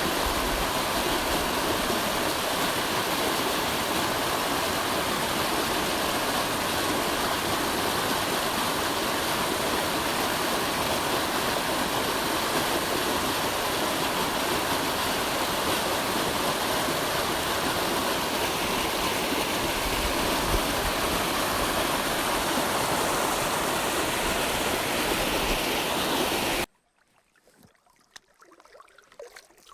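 Flowing water rushing steadily, like a stream, with a full, even hiss. It cuts off suddenly near the end, leaving only faint, uneven sounds.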